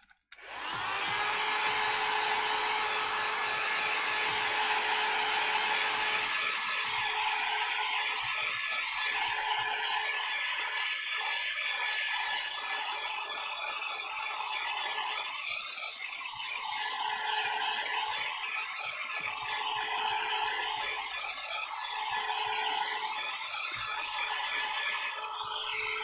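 Handheld electric hot-air dryer blowing steadily with a motor whine as it dries wet watercolour paint, switched on just after the start and cut off at the end. Its sound wavers slowly as it is swept back and forth over the paper.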